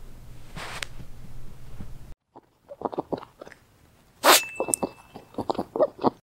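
Faint room tone with a low hum and one short rustle, then a logo end-card sound effect: a quick run of short clicks and knocks, a sharp pop about four seconds in, and a brief high ring after it.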